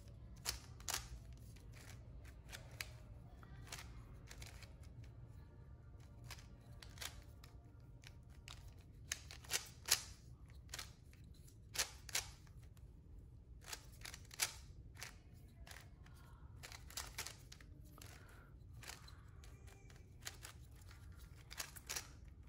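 Plastic 3x3 speed cube, a QiYi Warrior S glued into a bandaged cube, turned by hand: irregular clicks and clacks as the layers snap into place, in quick runs with short pauses between them.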